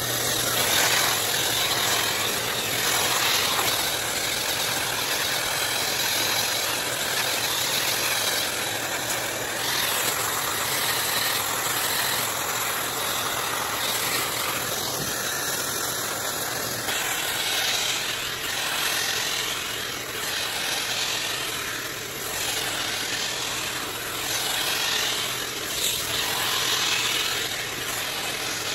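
EGFKI high-velocity dog dryer blowing at about half power: a steady rush of air over a low motor hum, swelling and easing as the comb nozzle is worked through a pug's thick double coat.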